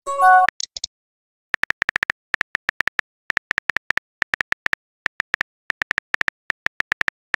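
Phone messaging-app sent-message chime, a short cluster of a few notes with a quick high chirp after it, then on-screen keyboard tap clicks in quick runs as a message is typed.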